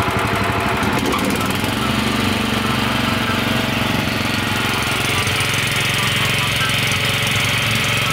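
Subaru Robin EH30 single-cylinder petrol engine on a Mikasa MCD-216V concrete saw, running after a fresh start. About a second and a half in it is throttled up, then holds a steady high speed.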